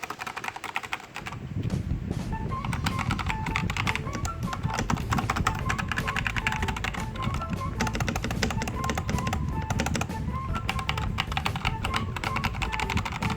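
Fast, continuous typing on a LOFREE 1% transparent mechanical keyboard: a dense, irregular run of keystroke clicks that thickens about a second and a half in, with background music under it.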